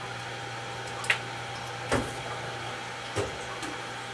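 A steady low hum runs underneath three short clicks and knocks, about one, two and three seconds in, from small items being handled on a work surface while hops are readied for the kettle.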